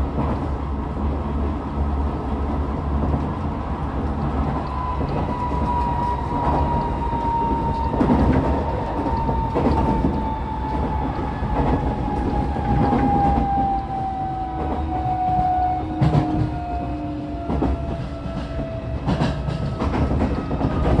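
Tokyo Metro 16000 series electric train heard from inside the car, its traction motor and inverter tone falling slowly and steadily in pitch as the train slows for the station, under a constant running rumble. The wheels clack over rail joints now and then.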